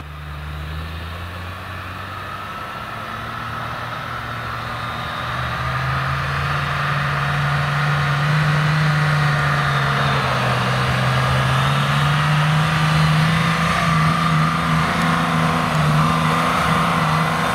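Mercedes G-class 3-litre diesel engine pulling steadily uphill under load on a badly worn clutch, growing louder and a little higher in pitch as it approaches over the first several seconds, then holding steady.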